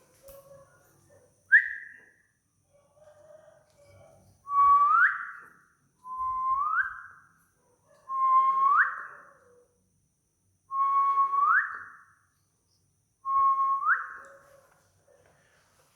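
Repeated whistled notes, six in all about two seconds apart, each held briefly and then sweeping sharply upward in pitch.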